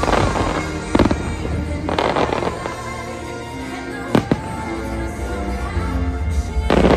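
Aerial fireworks bursting over a show's musical soundtrack: a sharp bang about a second in, two quick bangs a little past four seconds, and crackling bursts around two seconds in and near the end. Steady orchestral music with deep bass plays underneath.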